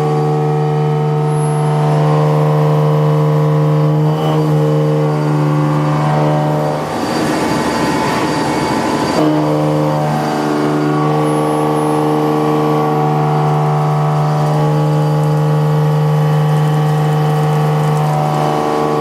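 Indexable-insert milling cutter machining metal: a steady, pitched cutting tone, with about two seconds of rougher, noisier cutting starting about seven seconds in.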